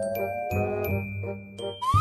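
Playful cartoon music: high bell-like chime notes over a steady, bouncy bass beat, with a slowly rising held tone. Near the end comes a quick rising whistle-like sound effect.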